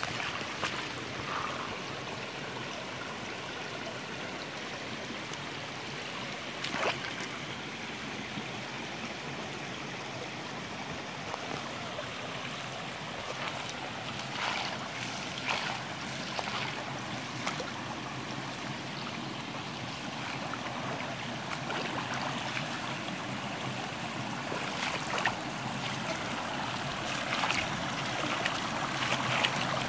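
Shallow spring-fed creek running over sand and logs, a steady babble of flowing water that grows louder in the last third as the current runs faster over a riffle. A few brief knocks are heard over it.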